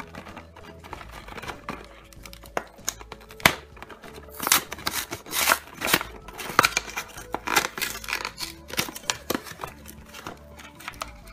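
Paperboard Kinder Surprise egg box being torn and pulled open by hand: a run of tearing and crinkling, loudest in the middle, over background music.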